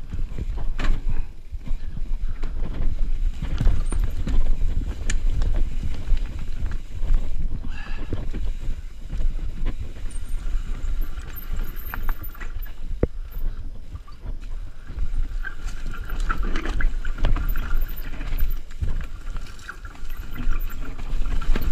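Mountain bike rattling down a rocky, rooty dirt trail: tyres crunching over roots and rock, with many quick knocks and clatters from the bike on every bump over a steady low rumble.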